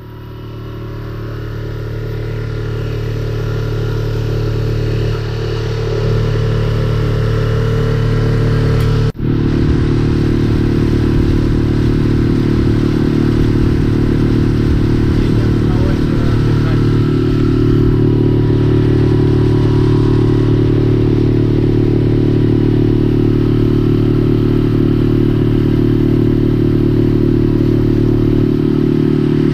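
Tohatsu outboard motor pushing a small inflatable boat, running steadily at constant speed. It fades in over the first few seconds and drops out for a moment about nine seconds in.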